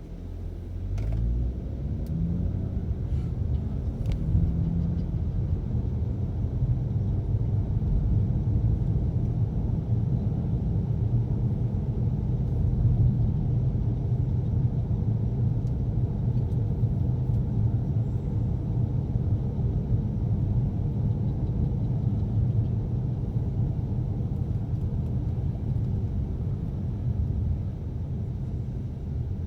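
Car heard from inside the cabin, accelerating: the engine's pitch rises over the first few seconds, then settles into a steady low rumble of engine and road noise.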